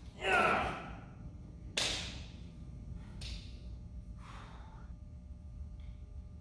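A short vocal sound like a sigh or grunt, then a sharp snap about two seconds in and two softer brushing rustles, as the fabric and frame of a large projector screen are handled and fastened together.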